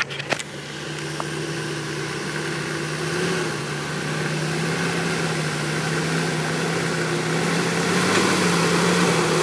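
Jeep Wrangler TJ engine running at low, steady revs as it crawls up a rutted dirt hill, growing gradually louder as it nears. A few brief knocks at the very start.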